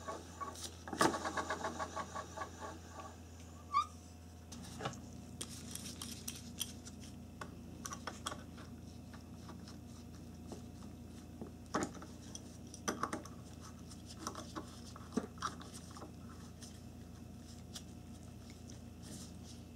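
Worn radiator cooling fan motor from a 1994–97 Honda Accord spun by hand, its bad bearings giving a rhythmic rattle that fades as the fan coasts down, with a fresh spin about a second in. After that come scattered metallic clicks and knocks of a hand tool working at the fan hub.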